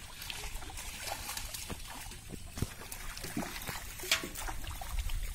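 Pond water splashing and trickling as a drag net full of fish is hauled through the shallows, with one louder splash about four seconds in.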